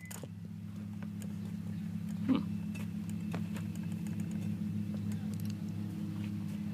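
A steady low mechanical hum runs throughout. About two seconds in there is a dull knock, and light clicks and taps follow as a baseball is picked up off the mat and set back on the batting tee.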